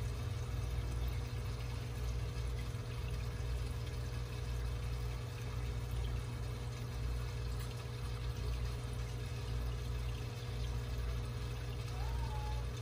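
Aquarium sponge filter bubbling steadily as air rises through its lift tube, a continuous watery gurgle over a steady low hum.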